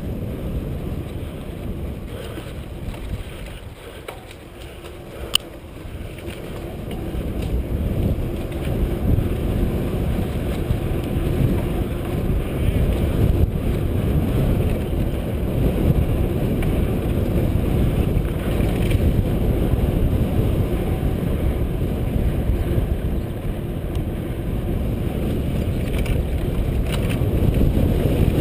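Wind buffeting an onboard camera microphone over the low rumble and rattle of a mountain bike riding a dirt singletrack. It gets louder after about six seconds as the bike picks up speed, with one sharp click about five seconds in.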